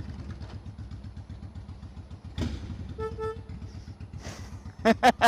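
Cruiser motorcycle engine running at a steady pace while riding, a low even rumble. A short double beep comes about three seconds in, and near the end a quick run of about six loud sharp pulses.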